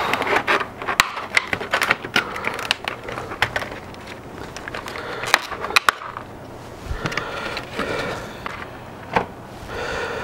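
Stiff clear plastic clamshell packaging being pried open and its lid pulled off: loud, irregular crackling and snapping of the plastic, thickest over the first six seconds and sparser after.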